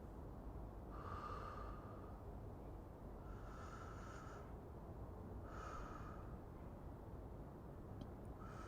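A man breathing slowly and evenly close to the microphone, about four breaths a couple of seconds apart, over steady low background noise.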